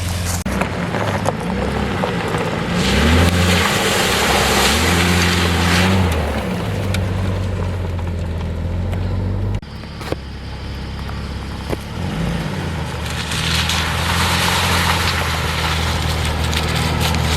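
Jeep Cherokee XJ engine running and revving up and down as it crawls a dirt trail, with two long spells of noise from the tyres and ground, and an abrupt change in the sound partway through.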